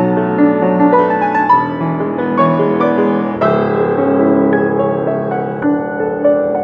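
Grand piano played solo: a steady stream of melody notes over held lower notes and chords.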